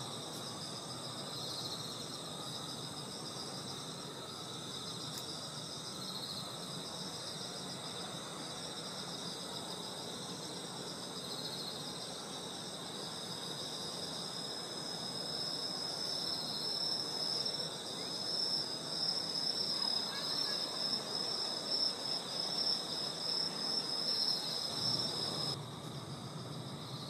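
Insects such as crickets chirping steadily in several high-pitched, pulsing layers. One trill grows louder in the second half, and the chorus drops off sharply near the end.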